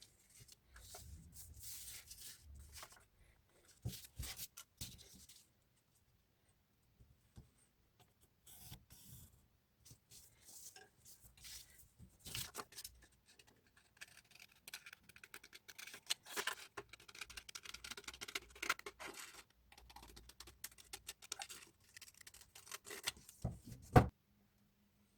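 Scissors snipping paper in short, irregular runs, with paper rustling between the cuts and a sharp click near the end.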